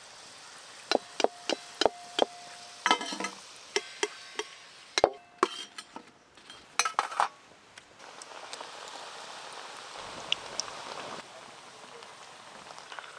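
A steel slotted spoon clinks repeatedly against a steel plate and wok, a run of sharp metallic clinks with a short ring, as fried koftas are lifted out of the oil. From about the middle on, koftas sizzle as they deep-fry in hot oil, loudest for a few seconds and then settling to a softer sizzle.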